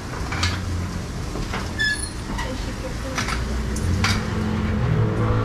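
Busy restaurant-counter background: a steady low rumble with scattered clicks and knocks, faint voices, and a brief electronic chime of a few short high tones about two seconds in.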